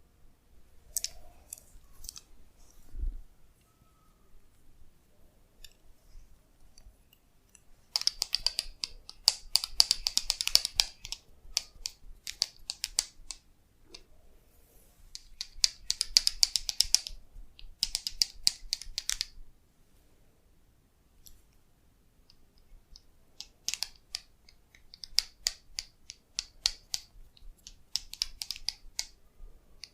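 Bursts of fast, crackling clicks from a masseur's hands working on a woman's head and hair, each run lasting a second or three, with pauses between.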